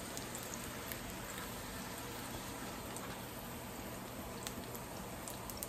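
Corn tortillas frying in a little oil in a skillet: a steady soft sizzle with a few faint scattered crackles.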